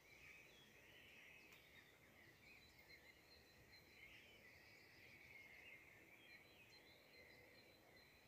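Near silence, with faint, steady high-pitched chirping in the background.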